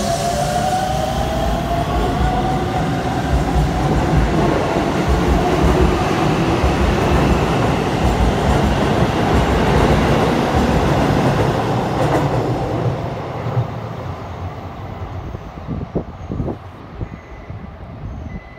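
Hokuso Railway 7300-series electric train pulling away: its traction motors whine, rising in pitch as it accelerates, over the rumble and clatter of wheels on the rails. The sound fades from about two-thirds of the way in as the train recedes, with a few last wheel clacks.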